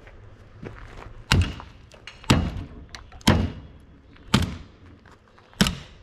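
Five heavy, evenly spaced blows, about one a second, struck against a cheap Sentry safe to knock off its useless handle, each one a hard thunk with a brief metallic ring.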